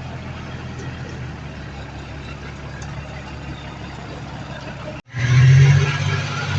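Heavy diesel earthmoving machinery engine running steadily; it cuts off abruptly about five seconds in and comes back louder and harsher.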